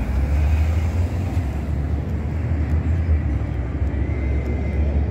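Steady low rumble of city street traffic with an even background hiss.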